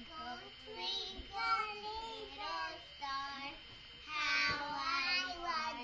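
A young child's high voice singing and babbling in short phrases, loudest about four seconds in, recorded through an action camera's built-in microphone.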